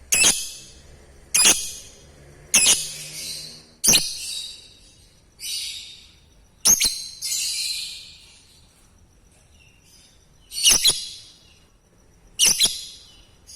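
Lovebird giving about eight short, shrill, rasping calls, each with a sharp start and trailing off within a second, a couple of seconds apart, with a longer pause past the middle.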